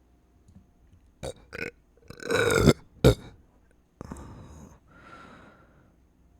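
A person belching from a full, gassy stomach: two short throat sounds, then one long, loud burp about two seconds in, and a short sharp burp just after. Two quieter, breathy sounds follow.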